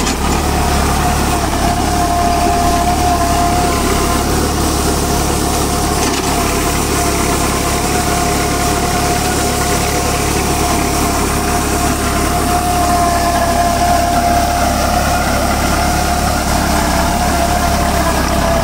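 Tractor engine running steadily while driving a Maschio Virat rotavator (PTO-driven rotary tiller) through dry soil and stubble. A steady high whine runs through the constant mechanical noise.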